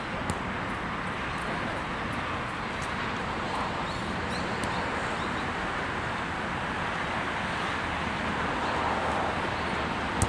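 Steady outdoor background noise with a few faint knocks of a futsal ball being kicked, the sharpest just before the end.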